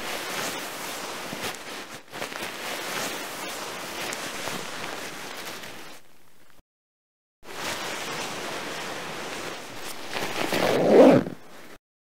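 Steady rushing noise with no tones, cut off for under a second just past the middle. It then returns and swells into a louder whoosh near the end before stopping abruptly.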